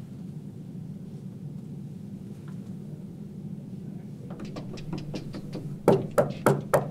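Knocking on a wooden office door: a few faint taps, then four quick loud knocks near the end, about three a second, over a steady low room hum.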